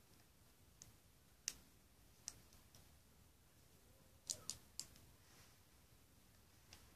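Lego plastic pieces clicking as they are handled and snapped together: a few sharp, separate clicks, with a quick run of three a little over four seconds in, against near silence.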